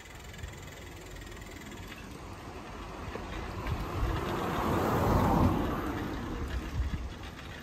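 A car approaching and passing close by, its tyre and engine noise swelling to a peak about five seconds in and then fading, over a steady low rumble.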